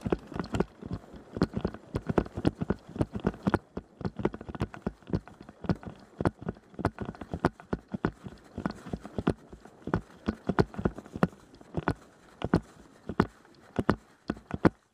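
Running footsteps mixed with airsoft guns firing covering fire: a quick, irregular string of sharp knocks and thuds, several a second.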